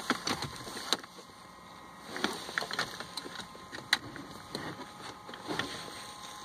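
Light handling noises: scattered clicks, taps and rustles as a hand moves a diagnostic cable around the car's centre console and plastic trim.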